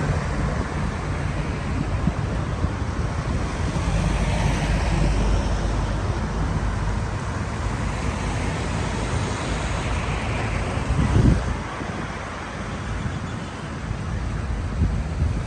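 Steady vehicle and road noise with wind, a low rumble throughout, swelling louder about eleven seconds in.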